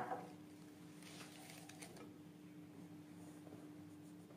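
A sharp knock with a short ring right at the start, then faint soft scraping and swishing between about one and two seconds in as a wooden spoon stirs thin yeast batter in a glass bowl. Otherwise near silence with a steady faint hum.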